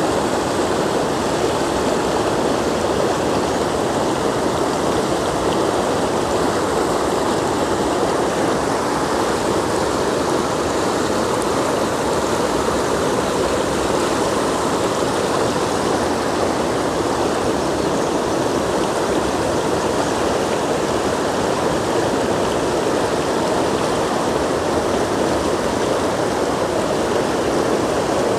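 Mountain river stream rushing over rocks: a loud, steady rush of water that doesn't let up.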